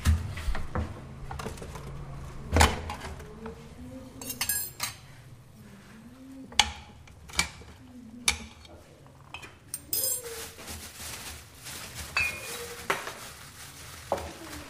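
Kitchen clatter: dishes, pots and cutlery clinking and knocking in a string of sharp, irregular strikes, the loudest about two and a half seconds in.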